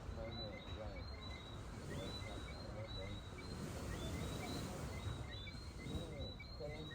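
Seaside evening ambience: a steady low wash of surf and wind, with a continual series of short, high-pitched chirps repeating several times a second.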